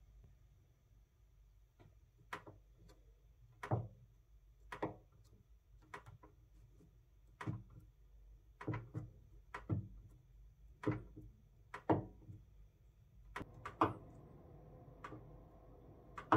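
Fingertip presses on a flat 4x4 membrane keypad lying on a table: about fifteen short soft taps at an uneven pace, roughly one a second, with a quick cluster near the end, over a low steady hum.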